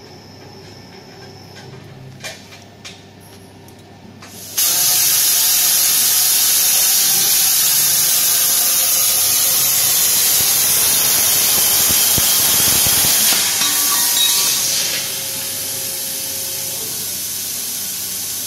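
CNC plasma torch cutting a stainless steel pipe: after a few light clicks, the arc starts about four and a half seconds in with a sudden, loud, steady hiss that runs for about nine seconds. It then stops and a softer steady hiss remains.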